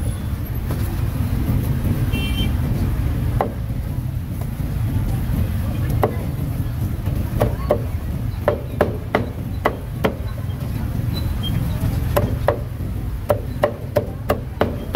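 Meat cleaver chopping through a grilled duck on a thick wooden chopping block: single sharp chops at first, then quick runs of several strokes at about three a second in the second half, over a steady low rumble of street traffic.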